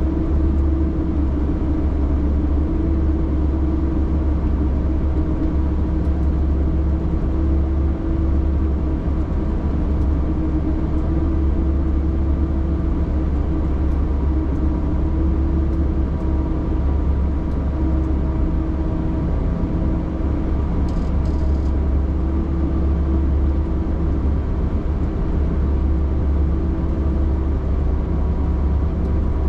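Vehicle engine and drivetrain running steadily, heard from inside the cab while driving over a snow-covered track: a constant low hum with a steady tone above it.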